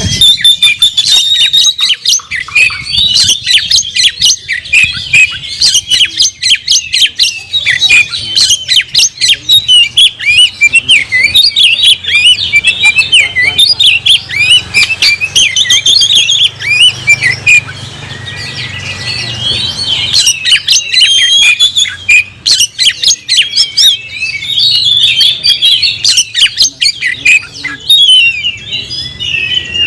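Oriental magpie-robin singing hard and without pause: a rapid run of varied chattering and whistled notes, easing off briefly past the middle before picking up again. This full, aggressive song is the kind a male gives to challenge a rival.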